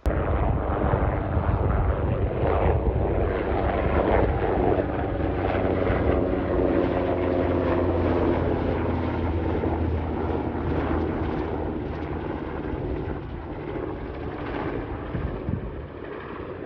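Military helicopter flying low past, its rotor and turbine engine loud and steady, then fading gradually over the last several seconds as it flies away.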